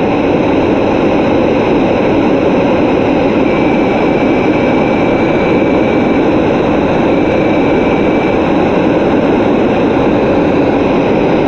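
Sandblasting nozzle firing sand on compressed air against a steel narrowboat hull, a loud, steady, unbroken blast, stripping old paint back to bare metal.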